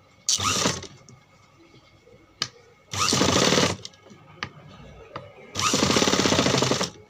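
Sewing machine stitching in three short runs, a brief one, then a longer one, then a longest one, each a fast even stitch rhythm starting and stopping sharply, as the suit neckline is basted with a temporary seam. Light ticks of the machine and fabric are heard between the runs.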